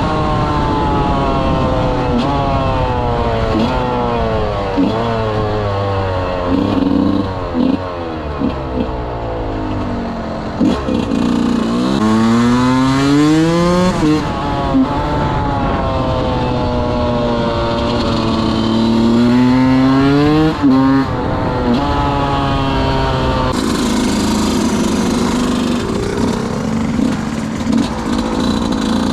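A 125 cc two-stroke enduro motorcycle engine being ridden hard. The revs mostly fall away in long slow glides, with sharp rises in revs about twelve and twenty seconds in.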